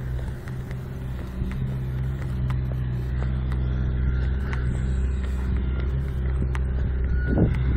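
A motor vehicle's engine running steadily nearby: an even low drone that holds its pitch. Scattered faint clicks sit over it, and near the end a steady high beeping tone starts, like a reversing alarm.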